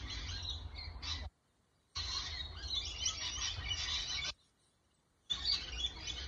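A flock of rainbow lorikeets chattering while they feed, a dense tangle of high calls. It comes in three stretches that each cut off suddenly, with silent gaps of about a second between them.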